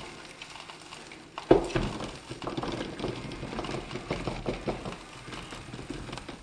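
Birdseed pattering and rattling as it trickles slowly through a funnel into a bird feeder, held up rather than flowing freely, with one sharp knock about one and a half seconds in.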